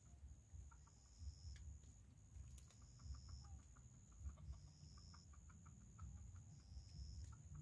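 Faint, soft scattered clucks from free-range chickens foraging, under a steady high-pitched whine that a second, lower tone joins every second or two. No crowing.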